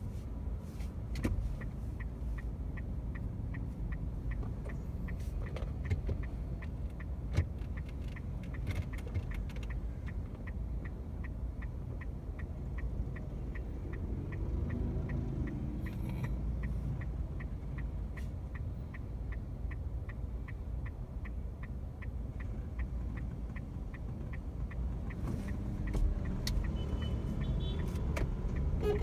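City traffic heard from inside a car held at a crossing: a steady low rumble of cars and scooters. A turn-signal indicator ticks about twice a second through the first half and then stops. Traffic grows louder near the end as vehicles move off.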